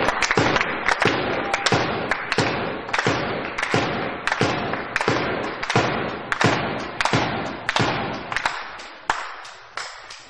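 Spectators in the hall beating out a steady rhythm in unison, about two beats a second, slowly dying away.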